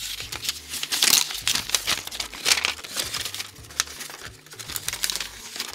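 Protective wrapping crinkling and tearing as it is peeled off a battery pack by hand, in irregular rustling bursts, loudest about a second in.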